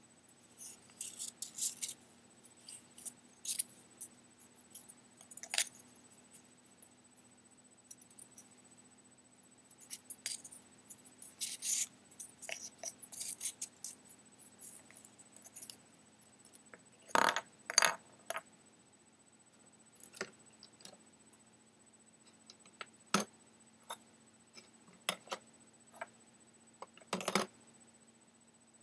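Small Christmas ball ornaments clicking and rubbing against each other in the fingers: a run of light, high ticks with a few louder clicks about two-thirds of the way through and near the end.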